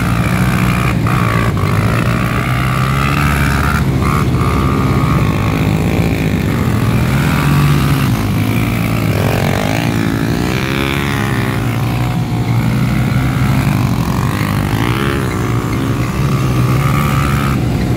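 Kart cross buggy engines running and revving hard on a dirt track, the pitch rising and falling as the karts spin and slide. A few sharp knocks in the first four seconds.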